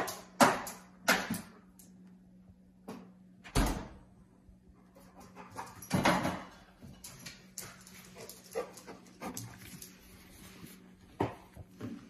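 A Labrador moving about a tiled kitchen, with scattered knocks and scrapes and a dull thud about three and a half seconds in as it tugs a rope to shut the fridge door. A faint steady hum runs underneath.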